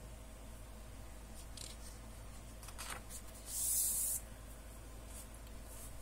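Paper pages of a thin softcover booklet being handled and turned: a few soft rustles, then a louder swish of a page turning over about three and a half seconds in.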